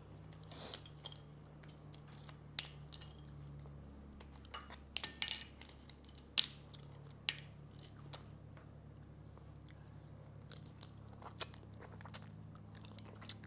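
Steamed mud crab shell being cracked and picked apart by hand and eaten: scattered sharp cracks and crunching with some chewing, the loudest cracks about five and six and a half seconds in.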